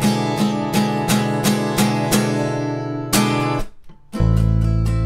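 Acoustic guitar strummed in a steady rhythm, about three strokes a second, on a repeating chord. A little after three and a half seconds the playing breaks off for about half a second, then the music comes back fuller, with a strong, steady deep bass.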